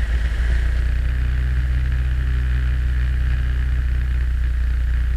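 Cessna 172's piston engine and propeller held at 1700 RPM for the pre-takeoff run-up, a steady drone heard inside the cabin. It settles at the higher speed about half a second in.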